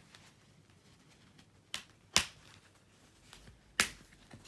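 Sharp plastic clicks as the plastic tag fasteners holding the gloves to their packaging card are broken loose by hand: one about a second and a half in, a louder one just after two seconds, another near four seconds and a faint one near the end.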